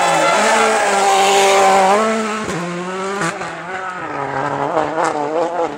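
World Rally Car engine at high revs, holding a steady pitch through a hairpin, then rising and falling repeatedly with throttle and gear changes and growing fainter as the car drives away.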